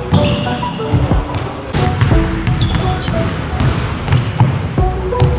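Background music with short melodic notes over a heavy beat, mixed with a basketball bouncing on a hardwood gym floor.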